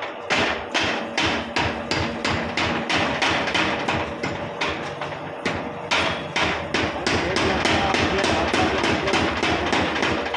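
Hammer striking again and again in a quick, steady rhythm, about three blows a second, with a faint steady hum underneath.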